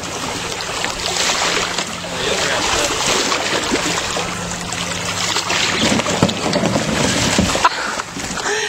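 Steady rush of water and wind noise, with water splashing beside a small wooden boat as something is hauled up over its side.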